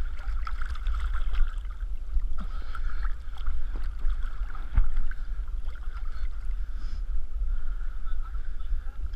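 Muffled lake water sloshing and lapping against a camera held at the water's surface, over a steady low rumble, with small knocks and one sharper knock about halfway through.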